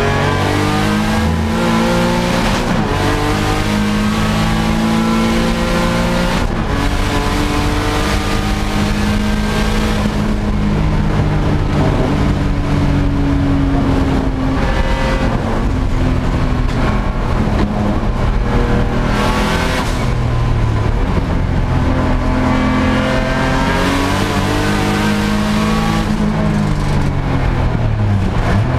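Turbocharged 3.5-litre V6 of a track-built Infiniti G35 racing at full throttle, heard from inside the cockpit. The engine note climbs again and again and then drops sharply with gear changes and braking.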